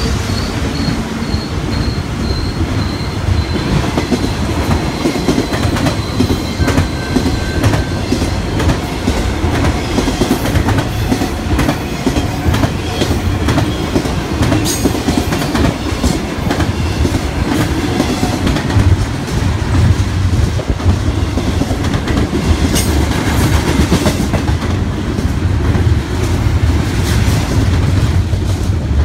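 BNSF double-stack intermodal freight train passing close by at speed: steady rumble with rapid clicking of wheels over rail joints and an occasional faint wheel squeal.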